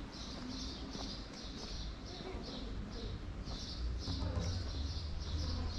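Rhythmic high-pitched chirping, about two to three short chirps a second, repeating evenly over a low background rumble.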